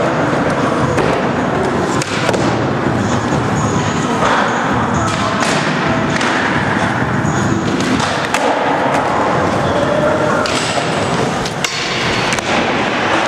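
Skateboard wheels rolling on a concrete floor, with the thuds and clacks of boards popping and landing several times, and voices in the background.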